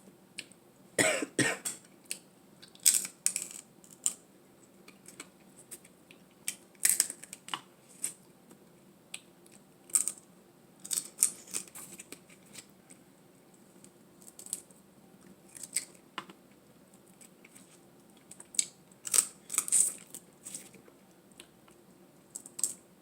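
Close-miked eating sounds: irregular sharp crackles and wet mouth clicks in short clusters, from chewing and handling seafood.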